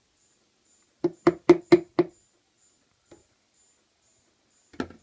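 Clear plastic tub knocked five times in quick succession, about four a second, to shake the last coco fibre substrate out of it, with one faint knock after and another couple near the end.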